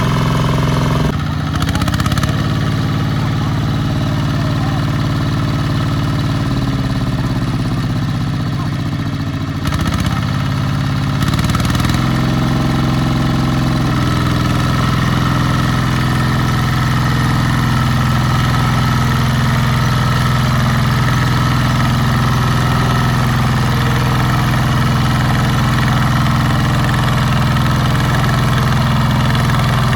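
Farm machinery diesel engine running under working load, its pitch dipping and picking up again a few times in the first half, then holding steady.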